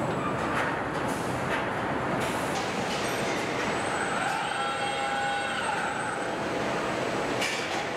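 Truck assembly-line machinery running: a steady mechanical clatter and hiss with scattered clicks, and a faint whine that comes in near the middle for a couple of seconds.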